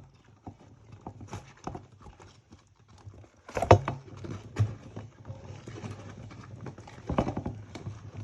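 Scattered clicks and knocks of hands working the plastic retaining clips off a doll in its packaging, with louder clusters about a third of the way in and again near the end.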